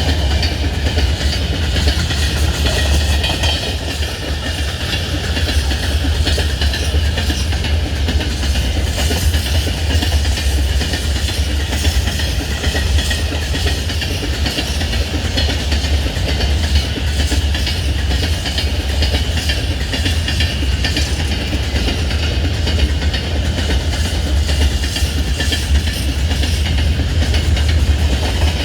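Train wheels clattering over the rail joints, with a continuous heavy low rumble of a moving train.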